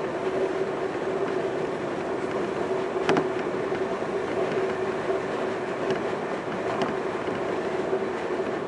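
Senboku Rapid Railway 5000 series electric train running at speed, heard from inside the passenger car: steady running noise with a steady hum and a single sharp click about three seconds in.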